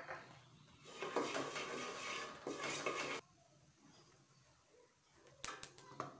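Wooden spatula scraping and stirring salt through hot oil across the bottom of a metal cooking pot (degchi) for about two seconds, with a sharp knock at the start and a few light knocks near the end.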